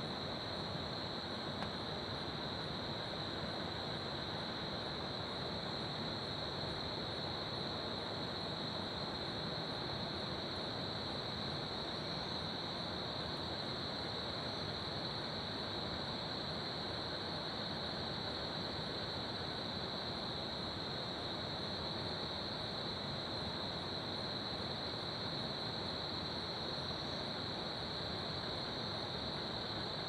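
Crickets chirping in a steady, unbroken high trill over the even rush of a flowing river.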